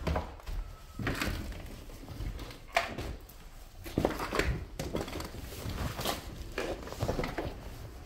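Footsteps and scuffing over a rubble-strewn floor, with irregular knocks and thunks; one sharp knock comes just before three seconds in.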